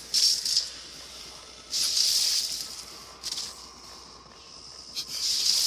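Hissing sound effects from the anime's soundtrack: four sharp bursts of hiss, each less than a second long, with quieter stretches between them.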